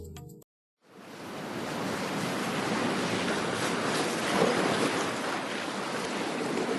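Atlantic Ocean surf: a steady wash of breaking waves, fading in about a second in.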